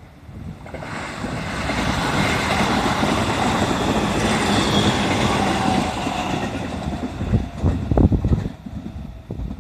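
E531-series electric train passing close by: a rush of wheels on rail builds up over the first couple of seconds, stays loud for a few seconds, then fades away. Wind buffets the microphone near the end.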